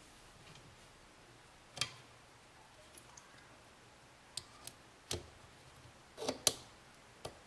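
Small parts clicking and tapping against a rifle trigger pack as it is put back together: a steel pin and trigger pieces knocking on the housing in a handful of separate sharp clicks, loudest about six and a half seconds in.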